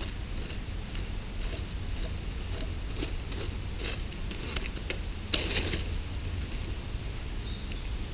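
A wooden stick raking and poking through campfire ash and charcoal: a string of light scrapes and crunches, with a longer, louder scrape about five seconds in. A steady low rumble runs underneath.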